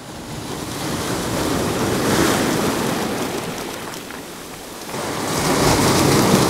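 Sea waves breaking and washing over large rounded shoreline boulders. The surf swells to a peak about two seconds in, eases off, and a second breaker surges in about five seconds in.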